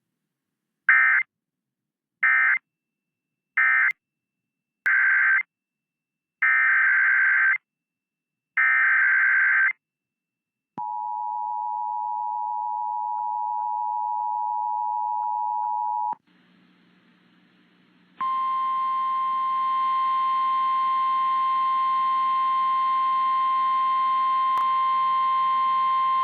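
Emergency Alert System broadcast tones: about six harsh digital data bursts (SAME end-of-message and header codes), the last two longer, then the two-tone attention signal held for about five seconds. After a short pause comes a steady single tone near 1050 Hz, the NOAA Weather Radio warning alarm, for about nine seconds, heralding the next tornado warning.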